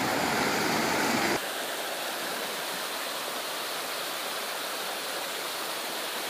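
Fast river current rushing over rocks and through a bamboo fish weir, a steady noise. About a second and a half in it suddenly turns quieter and thinner, its low rumble gone.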